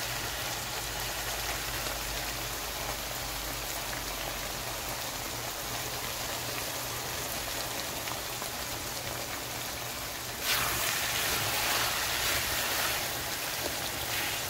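Chopped guar (cluster bean) pods sizzling in oil in a wok as they are fried down, a steady hiss that grows louder about ten seconds in.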